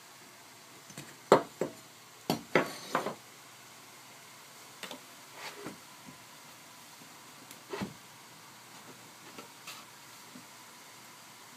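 Irregular knocks and clatters, loudest in a quick cluster near the start and then fainter and more scattered, from wooden boards being handled and set down.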